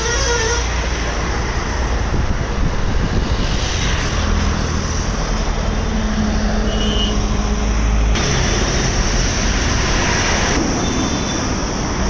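Steady roar of road traffic with a few short car-horn toots.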